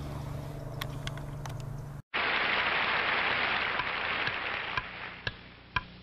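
A steady low hum with a few sharp clicks, then an abrupt cut about two seconds in to the soundtrack of an old black-and-white TV commercial: a loud even hiss with scattered clicks that fades over the last couple of seconds.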